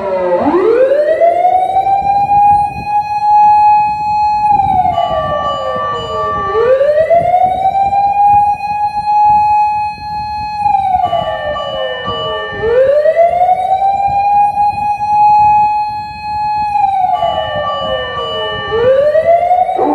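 Osaka Siren MK-10 electronic siren amplifier sounding a slow wailing siren. The pitch rises over about two seconds, holds high for a couple of seconds, then falls, and the cycle repeats about every six seconds.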